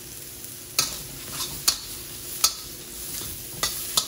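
Chicken and vegetables sizzling in a steel wok over a gas flame. A spatula knocks and scrapes against the wok about five times as the food is stir-fried.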